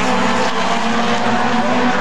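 Four-cylinder Super 4 late model race cars running at race speed on a short oval track, several engine notes overlapping in a steady, loud din.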